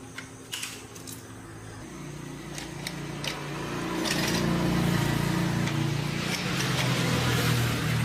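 A motor-driven machine running and growing louder, a steady low hum with hiss over it, after a few sharp clicks near the start.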